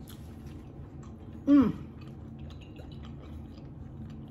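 A person chewing a mouthful of chicken and cheese quesadilla close to the microphone, with faint wet clicks of the mouth. About a second and a half in, one short hum with falling pitch breaks in.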